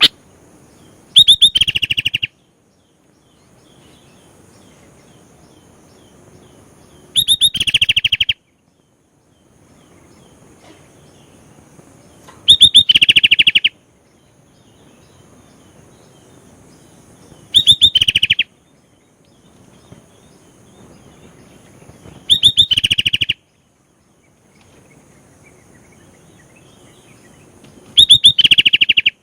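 Sooty-headed bulbul (kutilang) singing in six short, loud bursts about every five seconds, each a quick phrase of rapid, rattling notes. A faint steady background hum fills the gaps between phrases.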